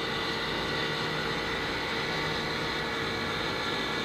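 Steady electric motor whine, several steady tones over an even hiss, as the power lift raises the boat's engine hatch and rear seat.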